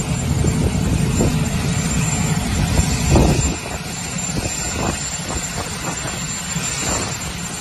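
Steady rumble and hiss of wind and aircraft noise on an airport apron, with a thin high whine throughout. It is louder for the first three and a half seconds, then eases slightly.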